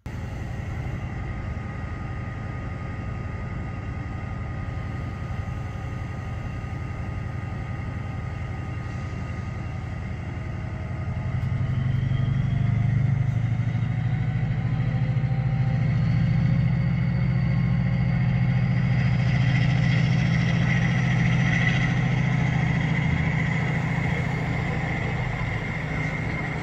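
An engine running steadily, getting louder about eleven seconds in, with a faint whine that rises in pitch.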